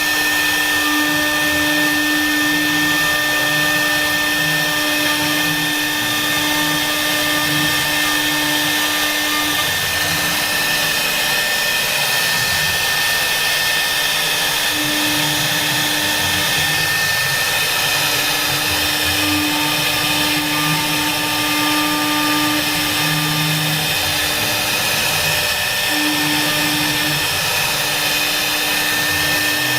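CNC router spindle running and cutting a carving, with a steady high whine. A lower hum comes and goes every few seconds over the cutting noise.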